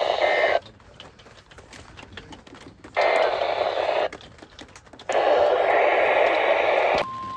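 NOAA Weather Radio alert heard through a radio receiver. The harsh buzzing bursts of the SAME digital header are separated by gaps of faint static: one burst ends about half a second in, another comes around three seconds in, and a third from about five seconds. About seven seconds in, the steady 1050 Hz warning alarm tone begins, signalling a new alert about to be read.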